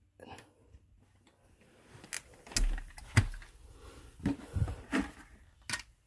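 Scattered plastic clicks and knocks as a Dyson Ball vacuum's clear dust bin is handled, with a dull thump about two and a half seconds in.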